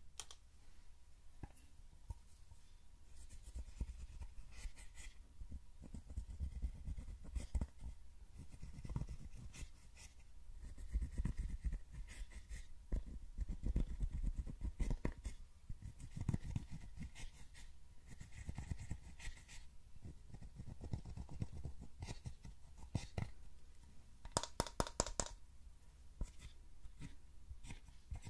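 Pressed eyeshadow being scraped and crumbled out of a plastic palette with a small pointed tool: dry scratching strokes and light clicks against the pans, over a low rumble of hands handling the palette.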